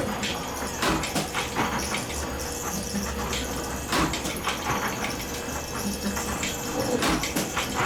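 Spring-making machine running: a steady mechanical noise with a faint hum, broken by many irregular clicks and knocks.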